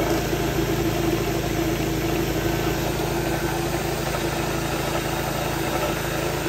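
Electric scooter's DC hub motor spinning without load at top speed on the third power level, a steady hum with a held high tone.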